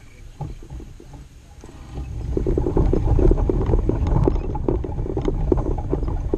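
Low rumbling noise with fast, irregular knocks on the camera's microphone, coming up about two seconds in: handling noise as the camera is moved.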